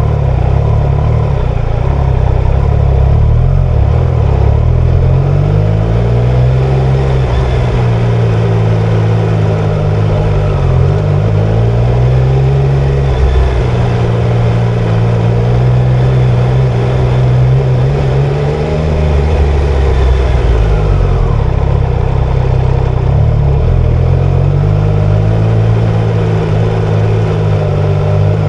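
Triumph Tiger Sport 660's three-cylinder engine on the move, its note climbing and dropping several times as the throttle is opened and eased off.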